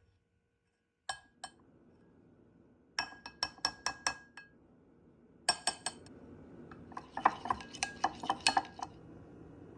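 A metal utensil clinking repeatedly against cookware while stirring: a couple of clicks, then a quick run of about six clinks, then denser clinking over a steady low hiss that comes in about halfway.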